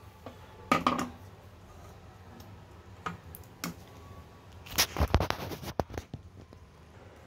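A steel serving spoon and dishes knocking and scraping while khichdi is ladled from a steel pot into a ceramic bowl: a few clinks about a second in, faint ticks around three seconds, and a cluster of knocks and scrapes around five seconds in.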